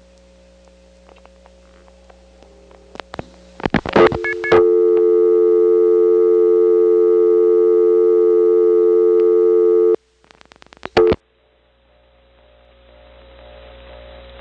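Payphone line on a step-by-step telephone exchange. A few clicks, then a loud steady two-note dial tone starts about four seconds in and is cut off after about five seconds by a quick run of rotary dial pulse clicks for one digit. The line then sits open with a faint, slowly rising hum, the central office's power-supply noise.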